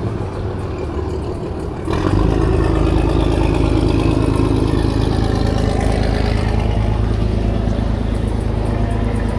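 A boat's engine running steadily with a heavy low rumble, growing louder about two seconds in as it works harder.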